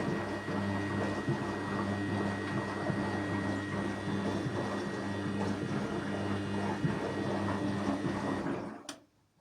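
Washing machine running: a steady motor hum with churning from the turning drum. It stops abruptly near the end, followed by a click.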